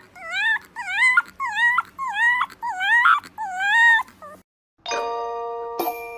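A fluffy white puppy howling in a string of about seven short cries, each rising and falling in pitch, the last one longer. After a brief break, bell-like chime notes ring out, struck twice near the end.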